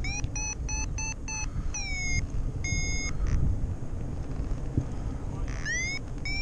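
Paragliding variometer sounding its climb tone: quick runs of short electronic beeps, some sweeping upward in pitch, a pause of a couple of seconds, then more rising chirps near the end, the sign that the glider is climbing in lift. Wind rushes steadily on the microphone underneath.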